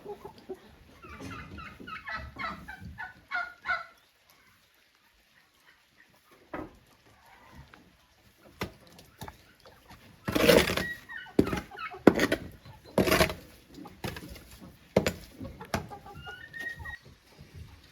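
Domestic fowl calling in a quick run of short clucking notes for a few seconds. Later a series of loud, sharp knocks or clatters, the loudest sounds, with a few fainter calls near the end.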